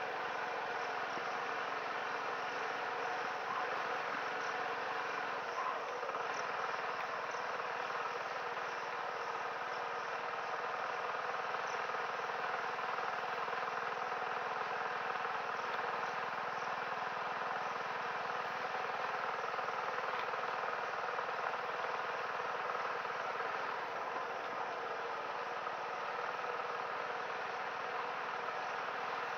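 TVS XL100 moped's small single-cylinder engine running at a steady speed while riding, with faint insect chirping over it.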